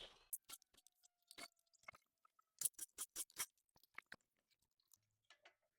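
Faint, scattered clicks and taps, with a quick run of four or five about halfway through: a 21 mm socket and wrench working on a car's wheel lug nuts.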